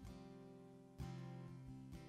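Acoustic guitar played softly under the quiet, chords strummed about once a second and left to ring.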